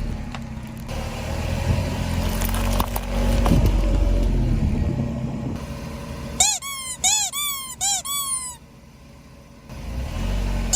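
A car engine runs low and slow with a few sharp cracks, typical of a car rolling over objects to crush them. Then, about two-thirds of the way in, come about six short, high squeaks in quick succession, each rising and then falling in pitch.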